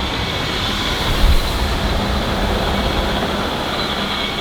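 BMW X3 F25 drivetrain turning with the wheels spinning on the lift, picked up close by a microphone: a steady whirring rumble with a faint high whine and a short thump about a second in. The mechanic puts this noise down to the differential's centre gears working because one wheel is held by a dragging brake while the other turns, which is normal.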